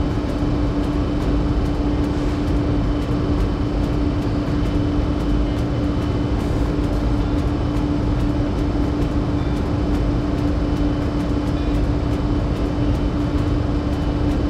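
Power sander running steadily against a car body panel: a constant hum over an even grinding noise.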